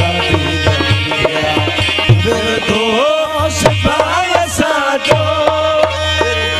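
Live Sindhi devotional folk music: harmonium chords over a steady hand-drum beat, with a singer's voice gliding up and down from about halfway through.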